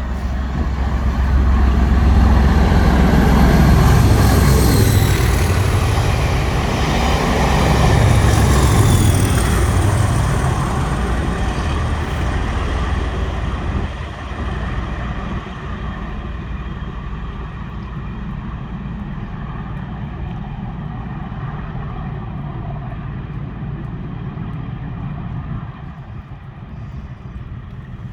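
English Electric Class 37 diesel locomotive passing under power: a loud engine drone with a whine that falls in pitch as it goes by, loudest over the first ten seconds. It then fades to a steadier rumble of the train running past and away.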